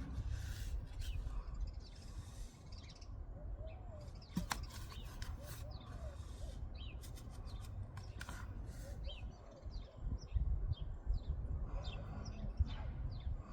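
Small birds chirping: many short, quick, falling notes repeating throughout, over a low rumble. A few brief sharp rustles or clicks come through, one about four and a half seconds in and a cluster around eight seconds.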